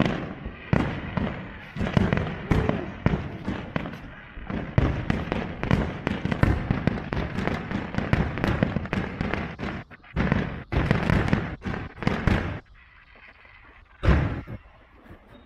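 Aerial fireworks shells bursting in a rapid, dense run of bangs. The run stops about four-fifths of the way through, and one more loud bang comes near the end.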